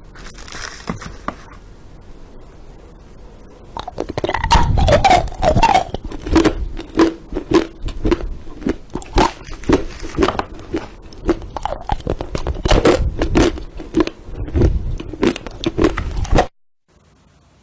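Close-up crunchy chewing and biting: rapid, irregular crunches and clicks that start about four seconds in, run thick for several seconds, then stop abruptly near the end.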